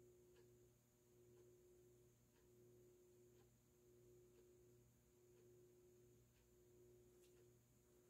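Near silence with the faint hum of a FASCO Heat-Cycler ceiling fan motor running at medium-low speed on a solid-state speed control. The hum's tone swells and drops about once every second and a bit, with a few faint ticks.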